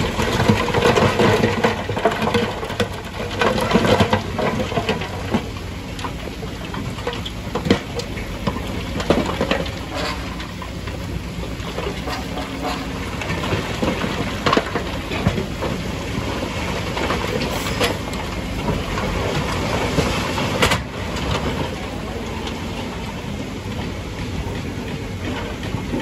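Dump truck engine running steadily as the bed tips up, with rocks sliding out of the bed and clattering onto the stone pile. The clatter is densest in the first few seconds, then comes as scattered single knocks of falling stones.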